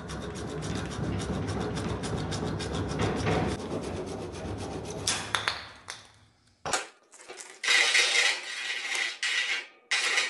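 A small hacksaw sawing through 1-inch PVC pipe in rapid back-and-forth strokes for about five seconds. After a short pause, the freshly cut pipe end is scrubbed on a sandpaper disc to smooth it, a louder, hissier scratching.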